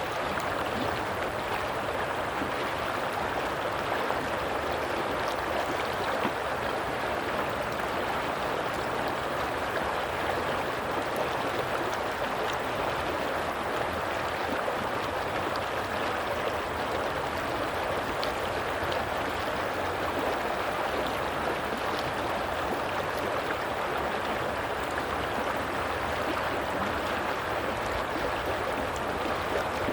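Flowing water in a stream, a steady, unbroken rushing and gurgling with no separate splashes.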